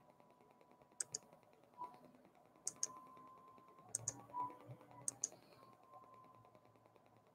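Faint clicking from working at a computer: four quick double clicks spread about a second apart.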